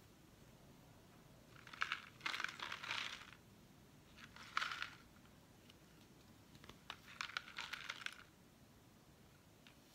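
Handling noise: three short bursts of crinkling and light clicking, about two seconds in, near the middle, and around seven to eight seconds in, as the painted gourd and its paper masking are turned and worked on.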